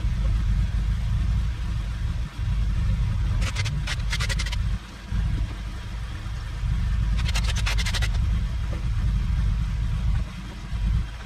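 Scion FR-S's flat-four engine running through a new Tomei unequal-length header, a deep uneven rumble. Two short bursts of rapid clicking come about three and a half and seven seconds in.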